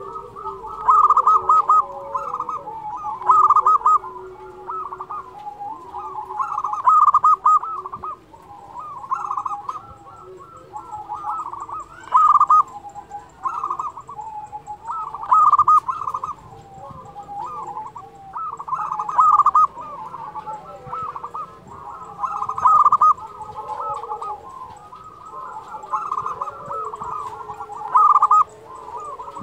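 Zebra dove (perkutut) singing: loud trilled cooing phrases repeating every two to three seconds, with quieter, lower coos in between.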